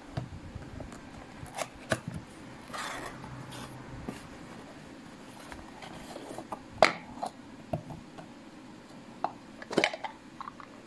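A cardboard box being handled and opened and a plastic manual spin chopper's clear bowl and green lid taken out: scattered knocks and clicks with a brief rustle of cardboard, the sharpest knock about two-thirds of the way through and a cluster of knocks near the end.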